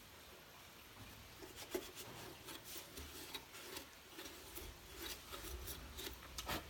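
Faint, irregular rubbing and scratching with a few light clicks: chrome polish being rubbed by hand over the rusted metal reflector inside a Royal Enfield brake light.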